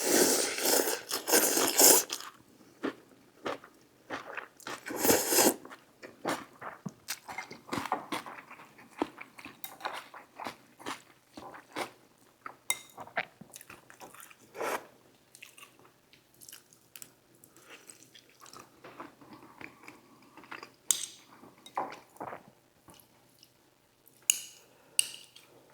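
Close-miked eating: chewing and crunching of noodle soup with fresh lettuce and onion, with two louder noisy bursts, one at the start and one about five seconds in, then many short crisp clicks of chewing.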